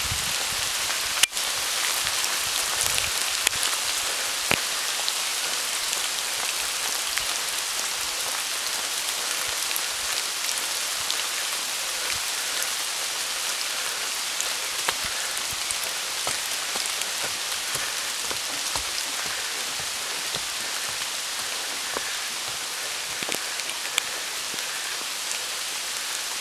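Steady rain, with many separate drops heard landing; one sharp click about a second in.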